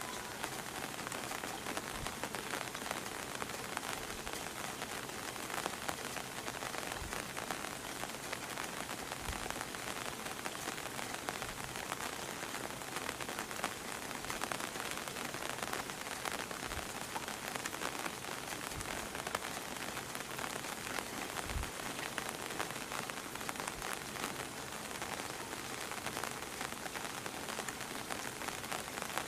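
Steady rain falling on hard surfaces, an even hiss of many drops, with a few soft low thumps scattered through it.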